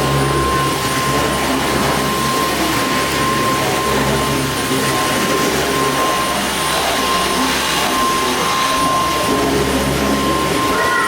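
A vacuum cleaner running steadily, its motor giving a constant high whine over a rushing noise.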